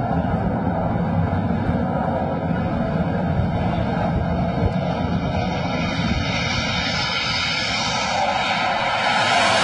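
Jet fighter approaching an aircraft carrier deck to land, its engine roar steady at first. A high whine swells from about halfway, and the sound grows louder near the end as the jet comes close.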